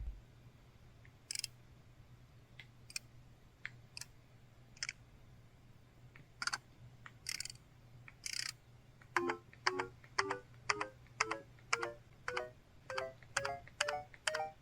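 LG-LB3300 Cyon mobile phone playing its built-in system sound effects. A handful of short clicks and blips come at irregular intervals, then about nine seconds in a quick run of short electronic beeps follows, about two a second, stepping upward in pitch.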